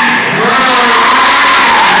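Ferrari 360 Spider doing burnout donuts. The tyres squeal steadily and loudly while its V8 revs up and down, with a brief dip in level just after the start.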